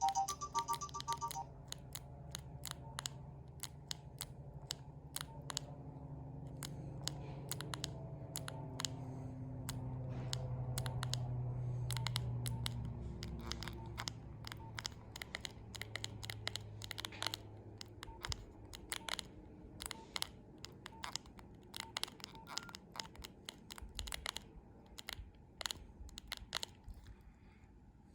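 Plastic keypad buttons of a Nokia 2125i phone clicking as they are pressed, one after another at an irregular pace, sometimes several a second. A ringtone's last tones cut off about a second in.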